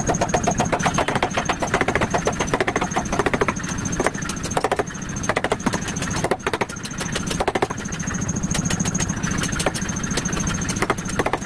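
A 40 kg pneumatic power hammer forging chisel steel, delivering rapid runs of blows with a few single strokes in the middle, over the steady hum of its motor.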